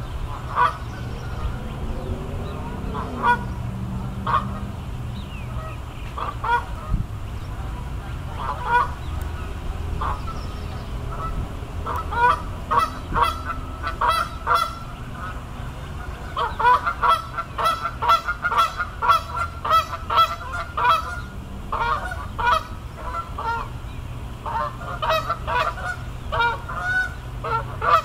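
Geese honking: scattered single calls at first, then many calls in quick succession through the second half, as from a flock. A steady low rumble runs underneath.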